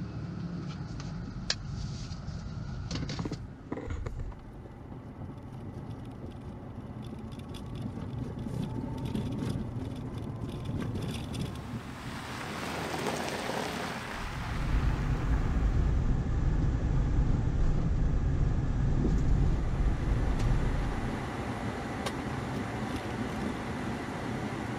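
Subaru Forester SG's flat-four boxer engine and tyres running on the road, a steady low rumble with a few sharp clicks in the first seconds. The rumble grows clearly louder about halfway through and eases off again near the end.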